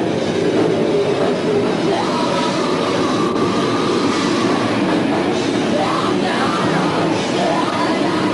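Death metal band playing live at a loud, steady level, a dense wall of sound with metal vocals faintly through it.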